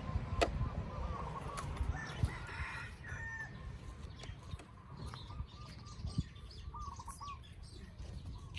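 Wind buffeting the microphone, a steady low rumble, broken by a few short, wavering squeaks and some sharp clicks.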